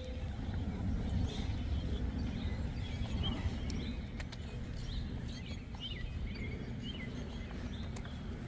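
Outdoor ambience: a steady low rumble with scattered short bird chirps over it.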